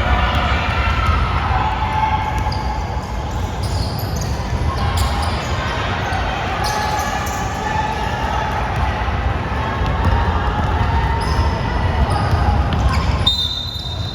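Basketball game sounds in a large gym: a ball bouncing on the court with repeated short knocks and players' voices over a steady low rumble. Near the end a high steady tone starts.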